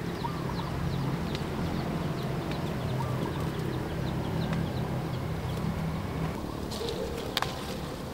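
Birds chirping in short, quickly repeated falling notes over a steady low hum, with a couple of sharp clicks about seven seconds in.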